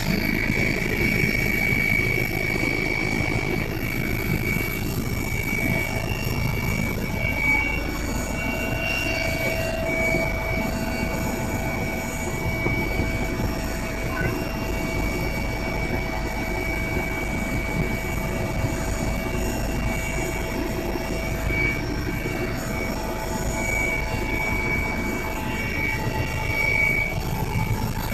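Helicopter running steadily: a constant low rumble with a steady high whine over it.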